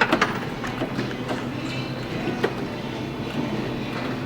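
Arcade background noise: a steady mechanical din with scattered sharp clicks and clacks, and a few faint electronic tones.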